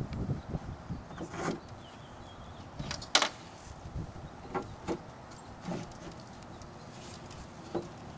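Wooden coop panels knocking and clattering as the back panel of the nesting box is handled and fitted into place: a few separate sharp knocks, the loudest about three seconds in.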